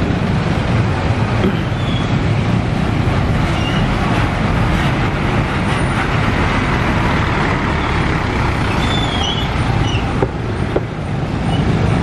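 Road traffic noise: a steady low rumble of engines and tyres, with a few faint high chirps, mostly in the last few seconds.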